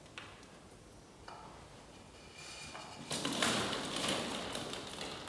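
Hollow plastic ball-pit balls clattering and rustling as a small monkey drops in among them and scrambles through them, loudest from about three seconds in. Two light knocks come before it.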